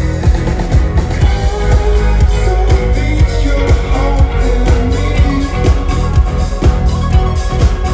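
Live dance-rock band playing loud, with a steady drum beat, heavy bass and electric guitar, heard from the crowd at the front of the stage.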